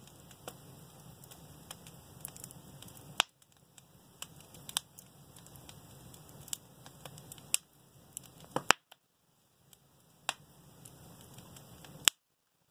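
Wood fire in a fireplace crackling, with scattered sharp, irregular pops over a faint low hiss, a few of the pops much louder than the rest.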